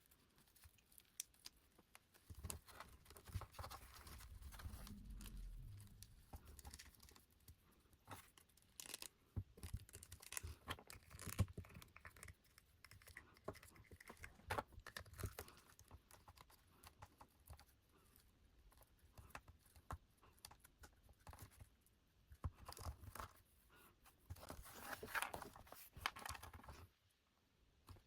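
Faint handling of doll packaging: rustling and tearing with many small scattered clicks and taps, and a longer stretch of rustling near the end.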